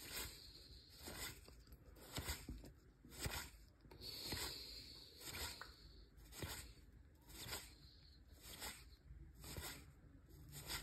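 Baseball cards being flipped through one by one, each front card slid off the stack across the next with a short, faint papery scrape, about once a second.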